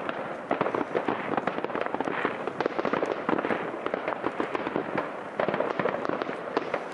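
Many fireworks going off at once: a dense, unbroken run of bangs and pops, with aerial shells bursting in the sky.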